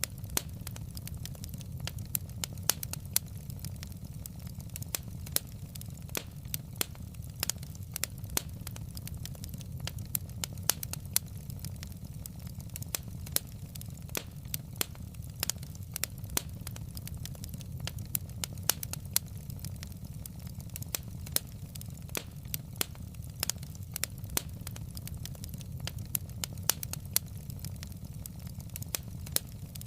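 Wood fire crackling in a fireplace: irregular sharp pops and snaps from the burning logs over a steady low rumble.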